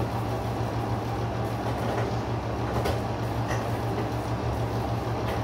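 A steady low hum with a constant rushing noise behind it, and a few faint clicks.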